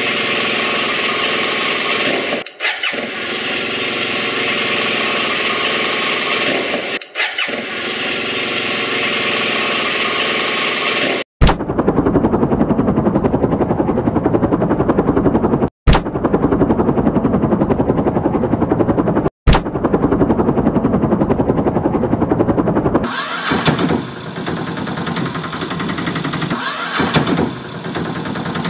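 Vehicle engine sound effects laid over the toys, in several edited pieces: a motorbike-like engine running through the first part, then from about 11 seconds a rapid, even chopping like a helicopter rotor, and a different small engine running near the end.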